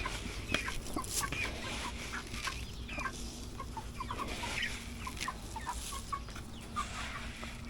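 A flock of meat chickens (broilers) clucking and chirping in many short, quick calls, with a few sharp clicks among them.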